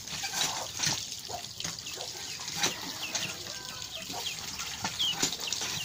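Water from a hand pump's spout pouring and splashing into a metal basin as pieces of fish are rubbed and rinsed under it, with a chicken's short calls here and there.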